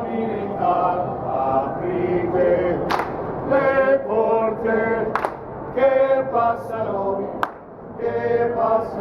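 Operatic singing: a singer holding long, sustained notes that change pitch from note to note, with a few short sharp clicks in between.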